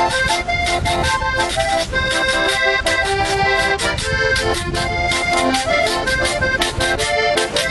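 Button accordion playing a vallenato melody, with a guacharaca scraper keeping a steady, quick scraping rhythm underneath.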